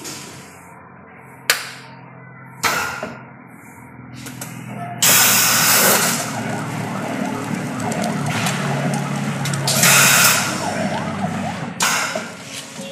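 Pneumatic string hopper machine running: a steady mechanical hum as its nozzles turn and press out dough, with two sharp clicks in the first three seconds. Loud hissing of compressed air comes in suddenly about five seconds in and again around ten seconds.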